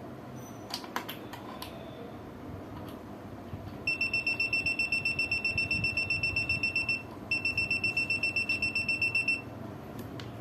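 Aneng 681 multimeter in its EF non-contact voltage mode beeping rapidly in a high tone, about seven beeps a second, in two runs with a short break between, signalling that it has detected live mains voltage. A few light clicks come before the beeping.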